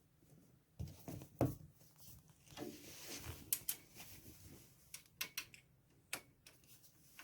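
Scattered light clicks, taps and small knocks of metal parts being handled as wire leads are fastened onto a winch's terminals.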